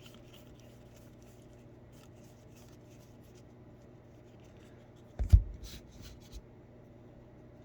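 Trading cards being handled and flicked through, faint rustling and light ticks, with one loud low thump about five seconds in.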